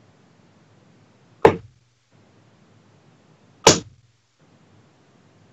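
Two steel-tip darts striking a bristle dartboard, two sharp thuds about two seconds apart.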